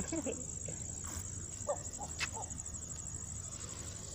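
Steady high-pitched insect trill, with faint voices in the first half.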